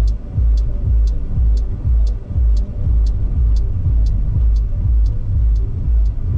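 Background electronic music with a steady beat: a deep kick-drum thump and a crisp hi-hat tick, each about twice a second.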